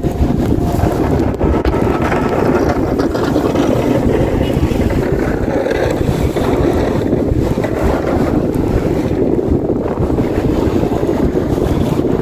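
Strong wind buffeting the microphone in a blizzard: a loud, steady, dense low rumble.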